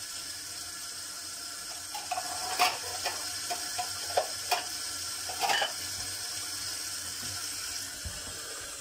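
Kitchen tap running steadily into a stainless steel sink while a ceramic plate is rinsed, with a few clinks and knocks of crockery in the middle. The water is turned off at the end.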